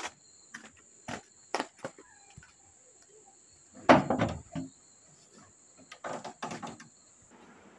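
Footsteps on a porch, then a wooden door's handle and latch rattled and clicked about four seconds in, and the door knocked as it was pushed open a couple of seconds later.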